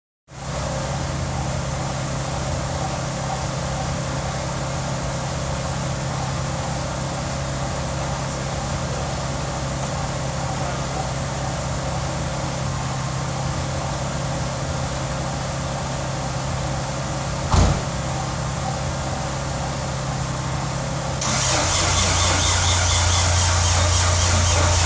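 The twin-turbo V6 of a freshly rebuilt Mitsubishi 3000GT VR4 being turned over by its starter motor to prime oil pressure before its first start, a steady whirring whine. A single knock comes near the end, and a few seconds before the end the sound turns louder and lower.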